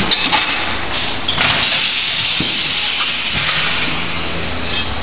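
Compressed air hissing steadily at a tyre changer, starting about a second in and easing off near the end, after a couple of sharp metal clanks at the start.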